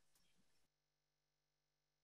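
Near silence: the audio is gated to a flat digital floor between phrases of speech.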